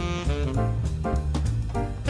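Background jazz music with a saxophone lead over a drum kit, with a steady beat.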